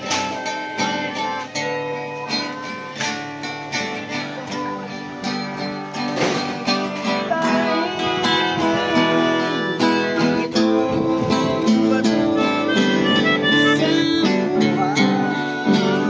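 Background music led by plucked acoustic guitar, with steady strummed or picked notes.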